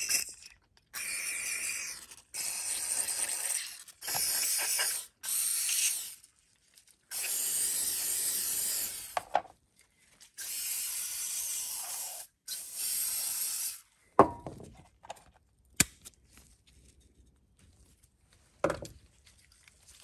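Aerosol cleaner spraying through a red straw nozzle into the passages of a Briggs & Stratton all-plastic lawnmower carburetor, in about seven short hisses. It is followed by a few light clicks and knocks of the plastic carburetor parts being handled.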